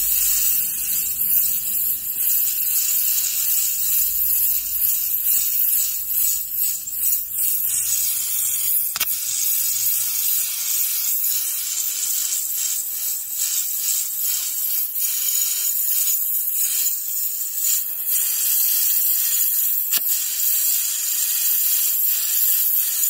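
Natural gas and oxygen torch flame hissing steadily against a steel tube retort cylinder, heating it to drive mercury off gold amalgam.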